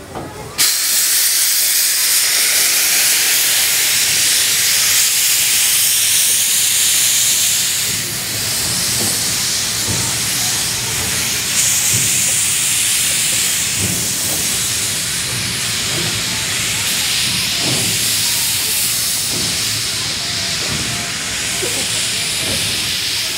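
The Japanese C62 2, a 4-6-4 steam locomotive, venting steam with a loud, steady hiss that starts suddenly about half a second in.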